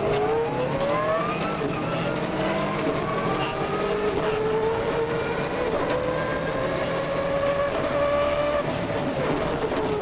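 Subaru Impreza 555 rally car's turbocharged flat-four engine, heard from inside the cabin, accelerating hard. The revs climb steeply in the first second, then settle into a long pull that rises slowly, and drop off near the end.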